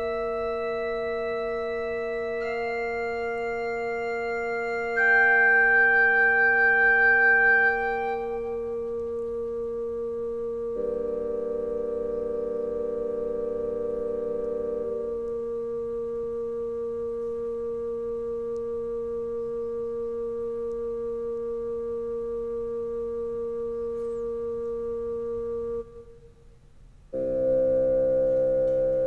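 Yamaha PSR-E263 portable keyboard playing one of its built-in songs with a sustained wind-like voice: a slow melody of long held notes over a steady bass note. A few notes step upward in the first seconds, a chord sounds briefly, one note is held for a long stretch, then after a short gap near the end a new chord begins.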